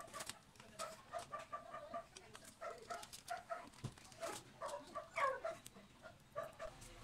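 Chicken clucking in a steady run of short notes, with louder calls about four and five seconds in. A few light clicks of a screwdriver on the carburetor's screws lie underneath.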